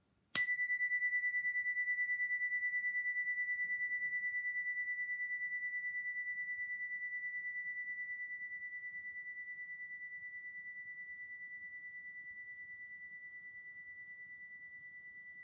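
A single strike of a mindfulness chime, then one clear high ringing tone that slowly fades and is still faintly sounding near the end. Its brighter overtones die away within the first couple of seconds.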